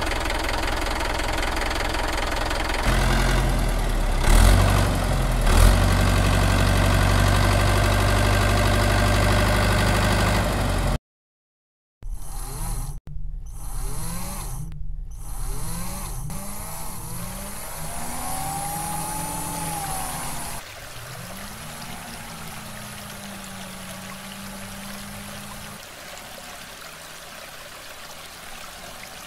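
Small electric motor of a homemade toy tractor running steadily, louder about three seconds in, then cutting off. After a brief gap it whirs again while driving a model water pump by belt, its speed rising and falling, then settles to a quieter steady hum.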